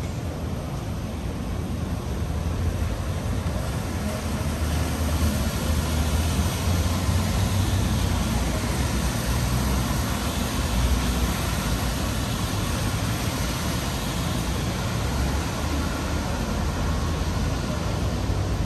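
City road traffic: a steady rumble of passing cars under a continuous hiss, growing a little louder a few seconds in.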